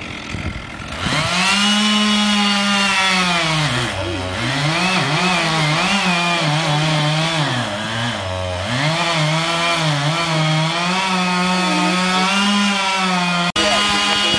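Chainsaw running at high revs. Its pitch sags sharply twice, about four seconds in and again about eight seconds in, and climbs back each time. The sound breaks off for a moment near the end.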